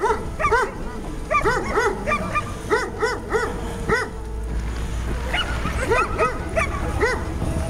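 A dog barking repeatedly in short, high barks, two to three a second, with a brief lull about halfway through.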